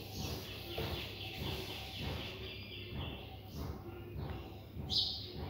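Faint rubbing strokes of a duster wiping a whiteboard, then a marker starting to write on the board.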